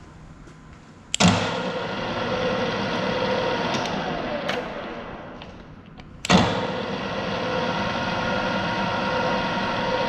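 Radial drill press spindle switched on with a sharp clunk about a second in and running with a steady machine hum, fading away after a few seconds, then switched on again with a second clunk about six seconds in and running steadily.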